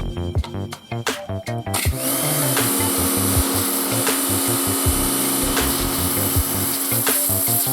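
Lavor Predator 160 electric pressure washer starting about two seconds in and then running steadily: a constant motor-and-pump hum with a loud hiss of spraying water, over background music.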